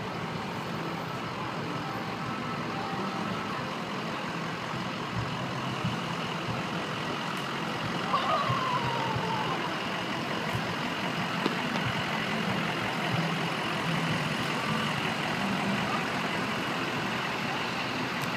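Ambulance's engine running as it drives slowly past at close range, getting louder from about halfway through, over steady street noise.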